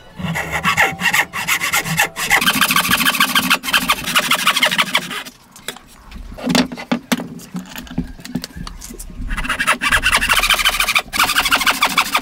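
A thin-bladed hand frame saw rasping through a hardwood block in rapid back-and-forth strokes. It stops about five seconds in, a few knocks follow, and fast sawing starts again for the last few seconds.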